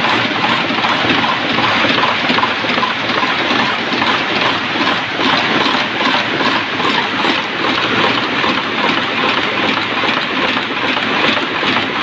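Cold heading machine running steadily, its punches striking wire blanks over and over in a fast, continuous clatter as it forms the heads of small tapping screws.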